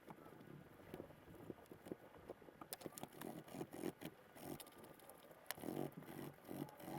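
Faint, irregular clicks and scraping of small metal fishing-reel parts being handled and cleaned, the clicks coming thicker in the middle.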